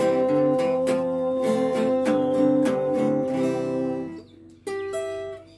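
Acoustic guitar strummed at the close of a song, under a man's voice holding a long final note. The strumming and the held note stop about four seconds in, and then a last chord is struck and left to ring.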